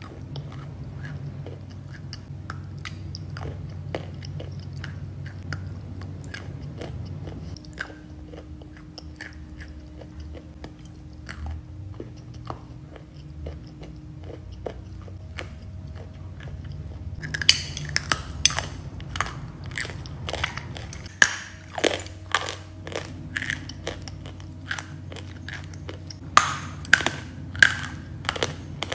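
Chalk being bitten and chewed close to the microphone: soft, quiet chewing of wet chalk at first, then loud, sharp crunching bites from a little past halfway.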